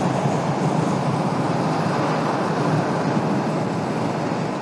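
Steady wind rush on the camera microphone mixed with the hum of a Royal Enfield Classic 350's single-cylinder engine, running at a constant highway cruise on a wet road.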